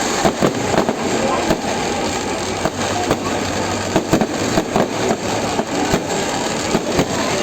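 Fireworks going off: a rapid, irregular string of sharp bangs and crackles over a continuous dense din.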